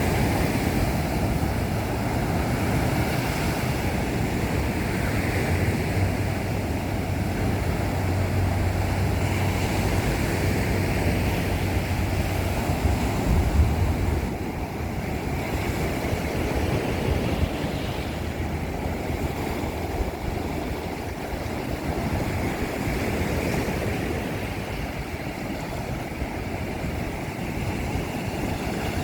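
Ocean surf breaking and washing on a beach, a steady rush of waves, with wind rumbling on the microphone. One louder surge comes about halfway through.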